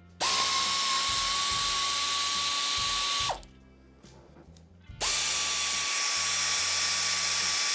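Pneumatic air ratchet run twice, each run about three seconds of a steady whine over loud air hiss, spinning out the rocker box cover bolts on a Harley-Davidson Sportster 883 engine. The first run drops in pitch as it stops.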